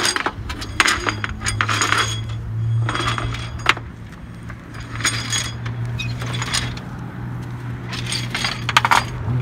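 Metal rollers of a playground roller slide rattling and clinking several times as a toddler shuffles and pulls himself down it, over a steady low hum.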